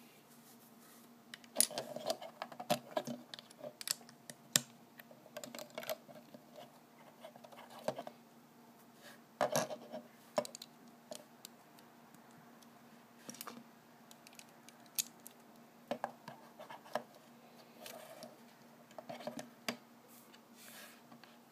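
Small plastic LEGO Batmobile model handled and moved on a wooden tabletop: irregular scratching and light clicks of plastic pieces against the wood and fingers, in scattered bursts.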